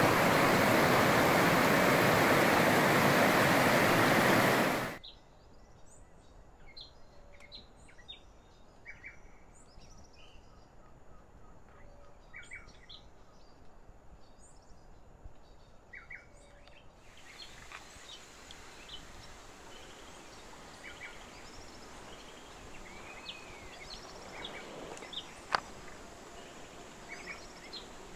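Rushing water of rocky river rapids, loud and steady, cutting off about five seconds in. After it comes quiet rainforest ambience with short bird calls every few seconds and a single sharp click near the end.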